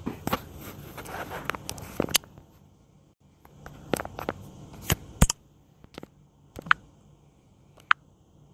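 Scattered sharp clicks and light knocks at irregular intervals, over a faint low hum and hiss. They are busier in the first two seconds, then come singly every second or so.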